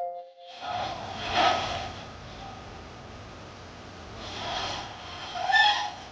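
A woman snoring in her sleep with her jaw held shut by a hairband: two breaths a few seconds apart, the snoring reduced to a softer, raspy wheeze, a sign of the airway staying more open.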